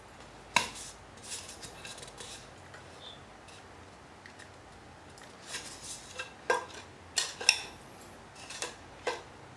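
Handling noises as an empty plastic yogurt cup is picked up and set down beside a wooden marble-run track: scattered light clicks and knocks. The sharpest comes about half a second in, and a denser run of clicks comes in the last four seconds.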